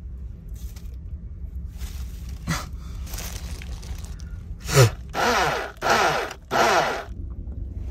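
Small personal blender pulsed in three short bursts in the second half, each about half a second, grinding Hot Cheetos into crumbs, over a steady low hum.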